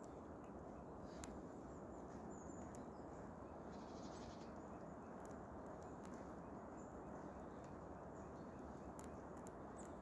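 Faint steady outdoor hiss with a few scattered small sharp clicks, typical of a squirrel gnawing and shelling seeds.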